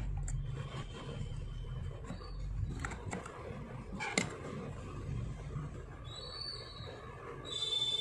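A few light metal clicks as the needle-bar and presser-bar assembly of a Godrej hand sewing machine is handled and fitted into the machine head, with one sharper click about four seconds in. Short high bird chirps come in near the end over a low background hum.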